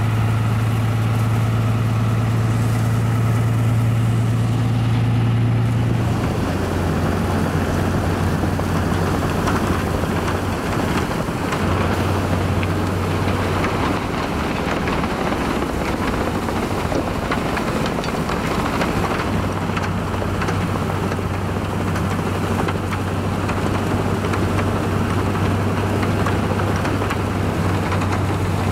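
Diesel locomotive engine running at a steady low drone while its plow drives through deep snow. From about six seconds in, a loud, dense rushing of thrown snow and wind joins the engine.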